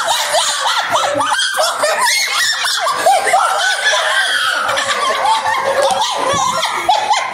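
Several high-pitched voices, children among them, laughing and shrieking together, loud and without a break, in an excited burst of laughter over a card game.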